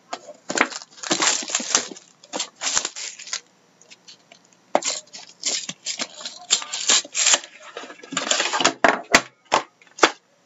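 Plastic shrink-wrap being torn and crinkled off a sealed trading-card hobby box, in irregular short bursts, with a few sharp clicks near the end.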